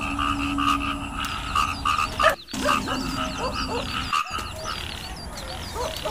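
Frogs croaking in a rhythmic chorus of repeated calls, cut off abruptly for a moment twice, about two and a half and four seconds in.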